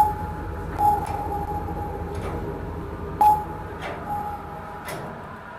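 Footsteps going down a steel stairway: about five metallic clanks, each with a short ringing tone, the loudest at the start and about three seconds in, over a low rumble.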